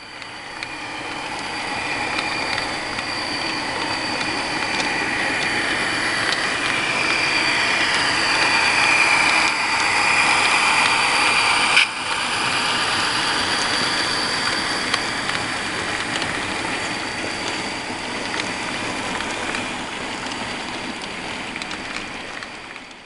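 HO-scale model train, Burlington Northern and Montana Rail Link diesel locomotives pulling hopper cars, rolling past close by: a steady rolling noise of wheels on rails with a high whine. It swells to its loudest about halfway as the locomotives pass, with one sharp click, then eases off.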